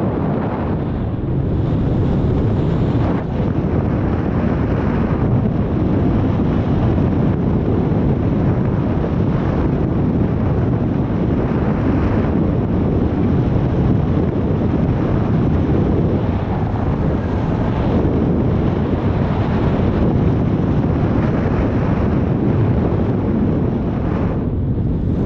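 Steady rush of airflow buffeting the microphone of a paraglider pilot's camera in flight.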